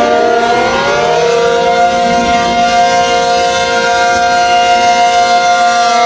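Outdoor tornado warning siren sounding. Its pitch rises during the first second or so, then it holds a steady two-tone wail.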